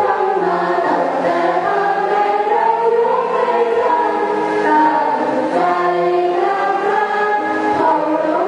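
A student choir singing in harmony, many voices holding long notes and moving between chords.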